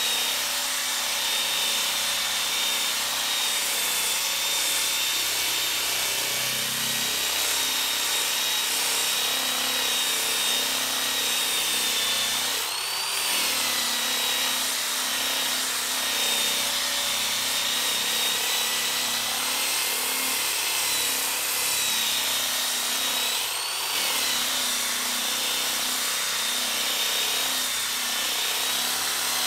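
Electric drill with a rotary sanding attachment running continuously against wood: a steady rasping hiss under a high motor whine. Twice, about 13 and 24 seconds in, the sanding noise briefly drops and the whine rises in pitch before settling back.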